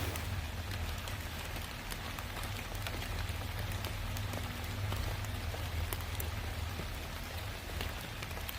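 Water pattering in scattered drops, many small ticks over a steady low rumble.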